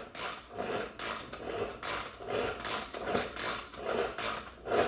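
Manual plunger food chopper being pumped up and down, its spinning blades chopping onion in the container: a rasping, rubbing stroke repeating about three times every two seconds.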